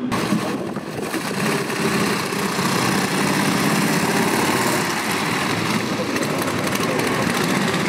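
Small pre-war sports car's engine running steadily as the car drives slowly past.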